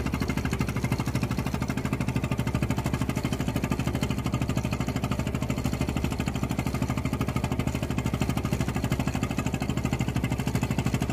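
An engine running steadily at idle, with rapid, even firing pulses.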